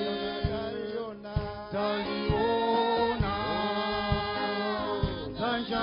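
Small mixed group of men and women singing a gospel song in harmony into microphones, holding long notes. A low thud marks the beat about once a second.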